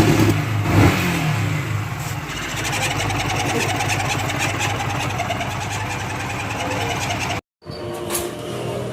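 Yamaha R15 motorcycle's single-cylinder engine running: a brief blip of revs about a second in, then a steady idle, broken off by a short silent gap near the end.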